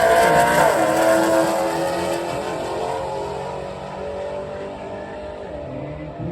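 Drag race cars accelerating hard down the strip, one of them a 2019 Jeep Grand Cherokee. The engine note dips in pitch about a second in, then climbs again while the sound fades steadily as the cars pull away.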